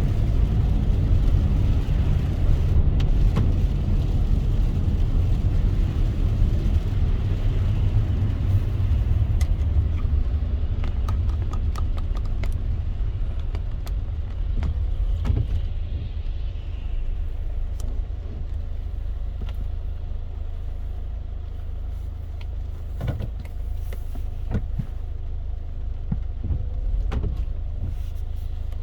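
A car driving in the rain: a steady low rumble of road and engine noise that gradually eases off, with scattered sharp taps.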